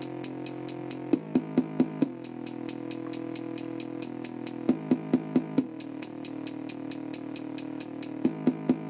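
Electronic music played through a small CRT TV's built-in speaker as a bass test. A drum-machine beat with quick, steady hi-hat ticks runs under held synth chords that change every few seconds, with bursts of louder drum hits in between. Almost none of the deepest bass comes through.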